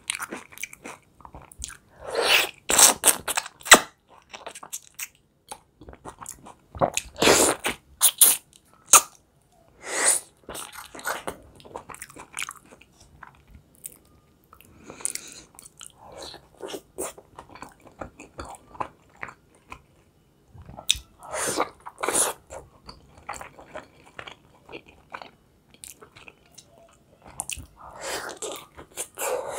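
A person eating beef khinkali: bites into the boiled dough and chewing, in irregular bursts with brief lulls between them.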